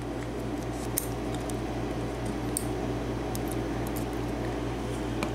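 A few light metallic clicks as small lock pins and springs from a Sargent cylinder lock are handled and taken out, over the steady hum of a small air conditioner.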